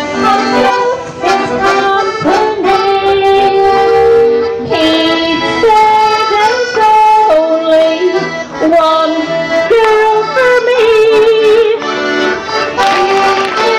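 Accordion playing a waltz tune for clog dancing, a melody of held notes.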